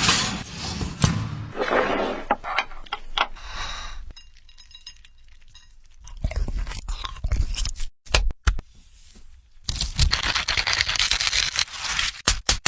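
Irregular crunching and scraping noises, with louder, denser stretches about six and ten seconds in.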